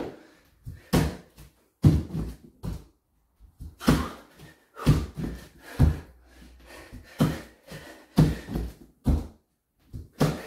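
Bare feet and hands thudding on a wooden floor during high-knee burpees: clusters of landings and jumps about once a second, ringing in a small bare room.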